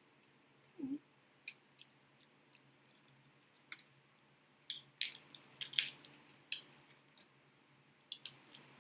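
Mukbang eating sounds: scattered wet smacks and clicks of chewing and mouth noises, coming thickest about five to six seconds in.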